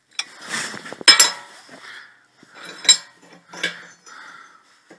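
Short pieces of cut steel tube clinking and clattering against a steel workbench as they are handled: a few sharp metallic knocks, the loudest about a second in.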